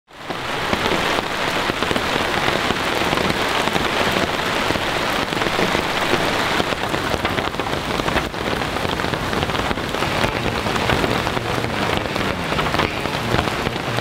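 Rain falling steadily, a dense, even patter of drops.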